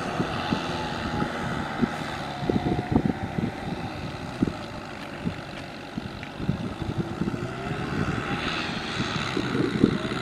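Kubota M6040SU tractor's diesel engine running under load as it pulls a cultivator through wet paddy mud, its pitch drifting slowly up and down, with irregular low bumps underneath.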